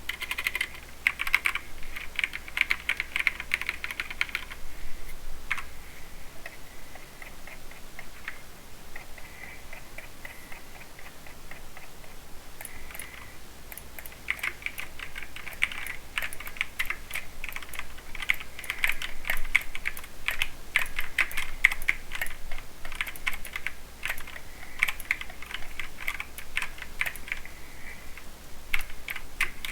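Typing on a mechanical keyboard with Cherry MX Silver Speed linear switches: fast runs of key clacks, thinning to a few scattered keystrokes for a while in the middle before fast typing picks up again.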